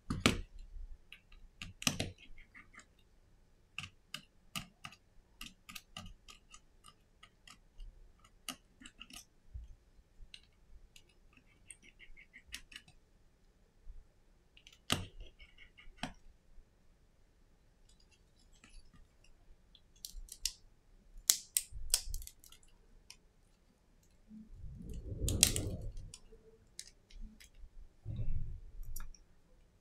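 Irregular small metal clicks and taps as a precision screwdriver works tiny screws and metal shield plates off a first-generation iPhone SE display assembly, with a short run of quick ticks partway through. Near the end comes a louder rubbing rustle and bump as the display assembly is handled.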